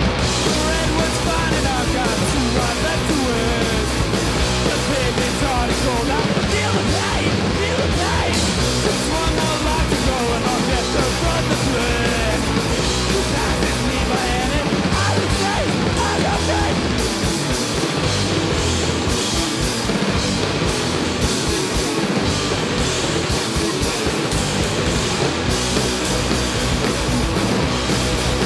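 Rock band playing live: electric bass, electric guitars and a drum kit with cymbals, loud and dense.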